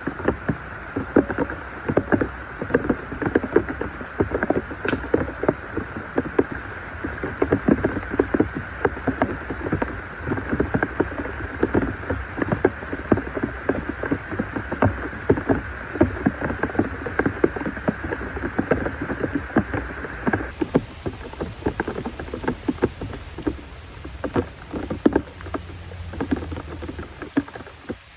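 Rain pattering in a heavy downpour, with many close drops ticking sharply.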